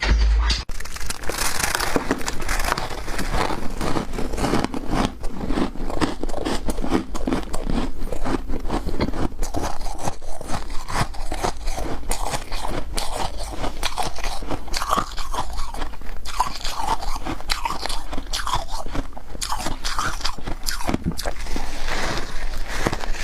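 Close-up crunching and chewing of frozen frost ice, a dense, continuous crackle of bites. A brief low thump sounds at the very start.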